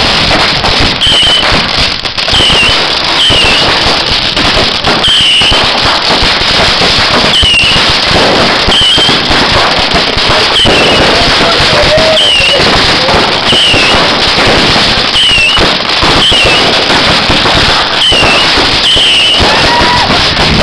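Fireworks cake firing a continuous barrage on the ground: dense crackling and rapid bangs as shots launch and burst. A short falling chirp repeats about once a second over the crackle.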